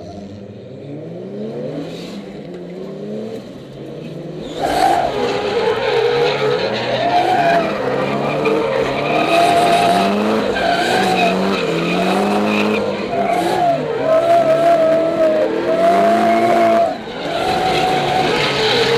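Nissan S15 Silvia's 2JZ-GTE turbocharged straight-six revving up and down hard through a drift, heard from inside the cabin. About five seconds in, the tyres break into a loud, wavering squeal that goes on with the engine.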